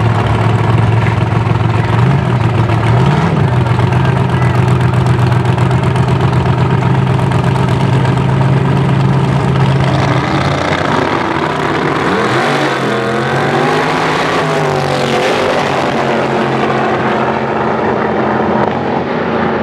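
Two drag-race cars' engines running at a steady high idle on the starting line, then launching about ten seconds in and accelerating away, their pitch rising and stepping through gear changes as they pull down the track.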